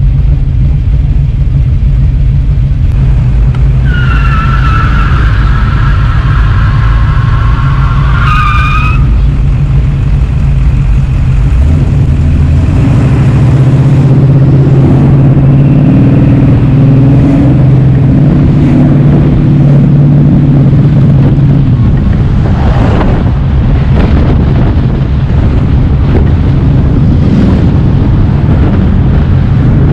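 Loud, steady low drone of a car's engine and exhaust while it creeps along in slow traffic. A wavering high squeal lasts about five seconds near the start, a deeper engine note swells in about midway, and a single sharp pop comes about three-quarters of the way through.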